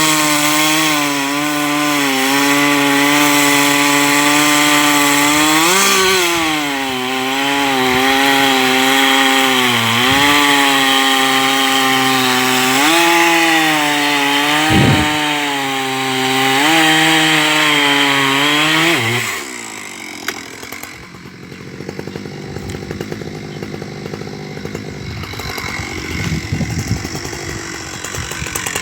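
Husqvarna 372 XP two-stroke chainsaw with a carbide-tipped chain running at full throttle through wood, its pitch dipping and recovering several times as the load changes. About two-thirds of the way through, the throttle is released and the engine falls to a quieter, lower running sound.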